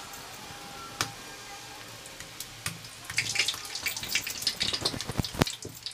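Bhatura dough deep-frying in hot oil in a kadhai: steady sizzling that turns into a denser crackle and spatter about three seconds in. A couple of sharp knocks come near the end.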